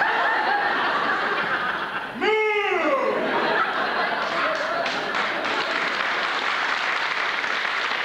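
Theatre audience laughing loudly, with scattered clapping joining in from about four seconds in. About two seconds in, a single voice gives one rising-then-falling whoop above the laughter.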